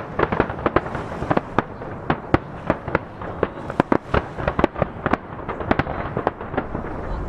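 Aerial firework shells bursting in a rapid, irregular barrage of sharp bangs, several a second. The bangs echo off nearby mountains.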